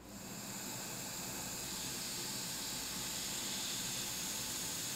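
Hot air rework station blowing a steady hiss of hot air onto a laptop's charging connector to melt its low-melt solder joints and desolder it. The hiss comes on at the start and holds steady.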